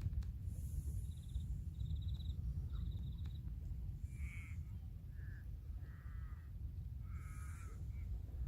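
A bird gives four harsh, caw-like calls in the second half, over a steady low rumble. Short, high insect chirps repeat in the first half.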